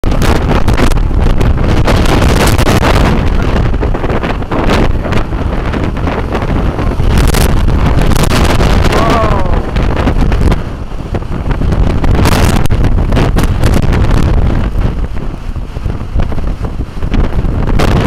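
Strong gusting wind buffeting the camera microphone with a heavy rumble, easing briefly about ten seconds in and again near the end.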